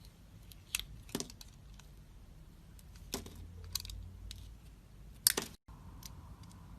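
Knife cutting into a bar of soap, with a few sharp, crisp cracks and snaps scattered through. The loudest snap comes about five seconds in, then the sound cuts out for a moment.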